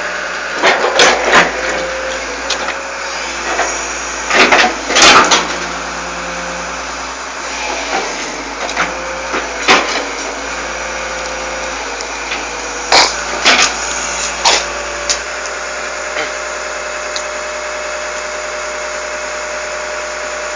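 Excavator engine running steadily, with loud clanks and knocks in several clusters as the machine works.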